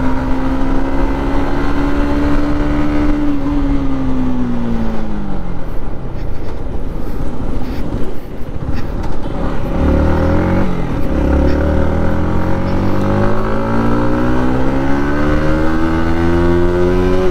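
Yamaha MT-15's 155 cc liquid-cooled single-cylinder engine, heard from the rider's seat. The engine note holds steady, then falls over a few seconds as the bike slows. About ten seconds in it rises briefly and dips, then climbs in one long rise as the bike accelerates.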